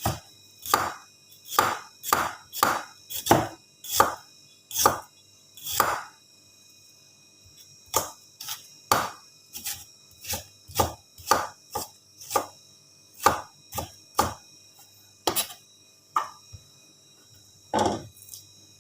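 A kitchen knife chopping on a cutting board: about two dozen separate knocks at an uneven pace, one to two a second, with a short pause partway through.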